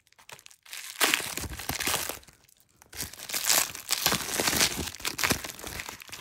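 Plastic bubble wrap being crinkled and pulled open by hand, unwrapping a small stone carving. There are a few light crackles at first, then two spells of dense crinkling, about a second in and again about three seconds in.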